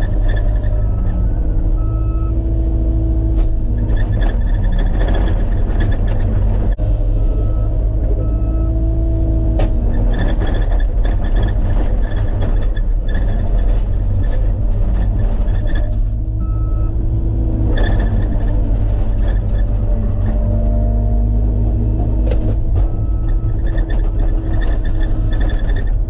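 Skid loader's diesel engine running under load while pushing snow, its pitch rising and falling. Short beeps of one pitch sound now and then, often in pairs.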